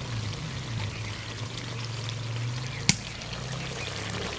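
Thick chicken gizzard curry bubbling and simmering in an aluminium kadai, with a steady wet trickling sound, and a single sharp tap about three seconds in.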